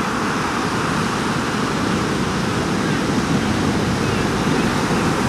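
Steady rush of ocean surf breaking, with wind noise.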